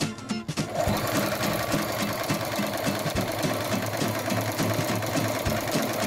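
Industrial sewing machine running steadily as it stitches a seam in heavy canvas, starting about a second in. Background music plays underneath.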